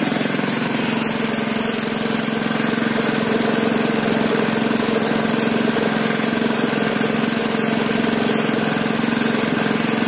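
Honda GX160 single-cylinder four-stroke engine idling steadily, running on the fuel left in the carburettor with the fuel tap closed.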